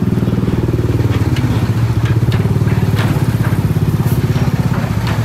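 Motorcycles and scooters riding off a ferry ramp, their small engines running over a loud, steady low engine drone, with scattered sharp knocks.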